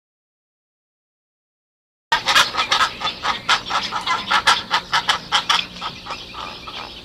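Silence, then about two seconds in a flock of farmyard fowl starts calling in a rapid string of short calls that grows fainter toward the end.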